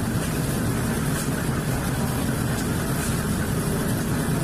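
Portable concrete mixer running steadily with a low mechanical drone, its drum turning a load of sand, cement and brick chips.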